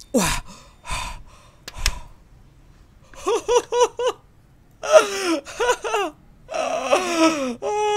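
A man's excited wordless vocalizing as he breaks a triangle cleanly out of a honeycomb sugar candy. A few sharp breaths come first. From about three seconds in there is a quick run of short, pitched laugh-like yelps, about five a second, then drawn-out cries that fall in pitch.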